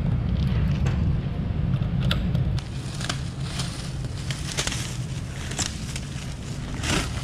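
Clear plastic protective wrap crinkling and rustling as it is pulled off a new motorcycle seat, in several swishes about a second apart, over a steady low hum.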